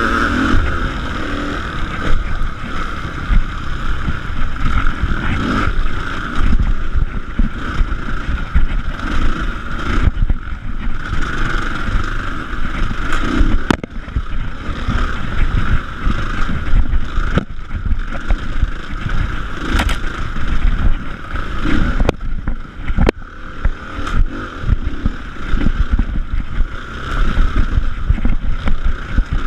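Off-road motorcycle engine running as it is ridden over a rough dirt trail, the note rising and falling with the throttle, with occasional sharp knocks from the bumps.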